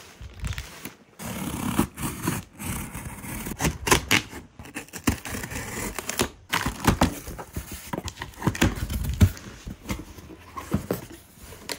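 A knife cutting open the plastic wrap of a shipping box, then plastic crinkling and tearing and the cardboard box being opened, with irregular scrapes and knocks of cardboard.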